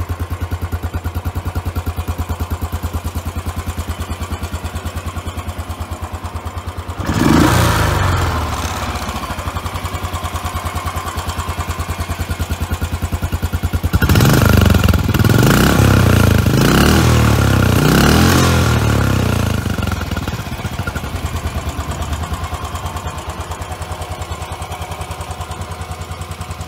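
Royal Enfield Bullet Trials 500's air-cooled single-cylinder engine idling with an even, steady pulse. It is blipped once about seven seconds in, revved several times in quick succession from about fourteen to twenty seconds in, then settles back to idle.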